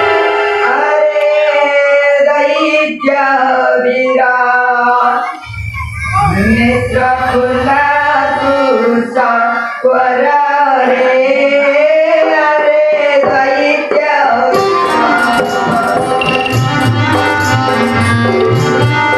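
A voice sings a drawn-out melodic line over held accompanying notes. About three-quarters of the way through, drums come in with a steady, quick rhythm and the music fills out.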